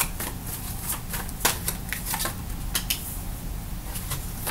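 Tarot cards being shuffled and handled by hand: irregular soft clicks and flicks of card stock. A card is drawn from the deck and laid on a wooden table.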